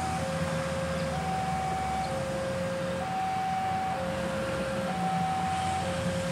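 Railway level-crossing warning alarm sounding its two-tone signal: a higher and a lower tone alternate evenly, each held about a second. This is the signal that a train is approaching the crossing. A steady low rumble runs underneath.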